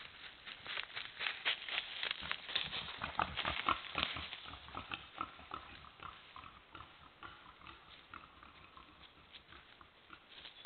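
Wild boar grunting close by, with the crackling rustle of its steps in dry leaf litter, loudest in the first half and fading as it moves off.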